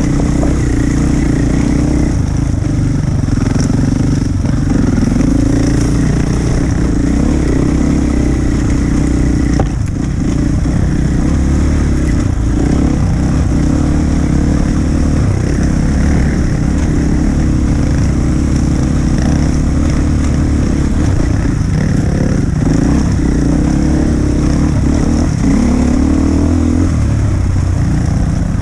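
Enduro dirt bike engine running and revving over a rough trail, its pitch rising and falling, with a brief dip in level near ten seconds.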